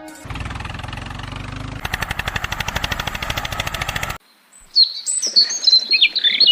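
An engine running, turning into a fast even chugging of about ten beats a second, cut off abruptly about four seconds in; then birds chirping loudly near the end.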